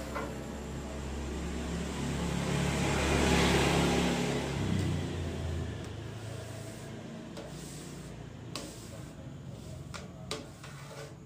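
A passing vehicle's engine swells up and fades away, its low hum dropping in pitch as it passes about four seconds in. Then a few light clicks and taps from hands working a vinyl sticker on a thin metal plate.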